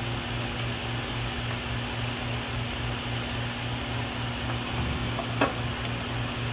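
A steady machine hum with a low throb pulsing about four times a second, and one short sharp click about five and a half seconds in.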